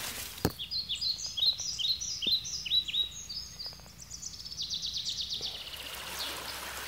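A songbird singing: a series of short, high chirping notes, then a fast trill from about three and a half seconds in. Near the end the even rush of a shallow stream takes over.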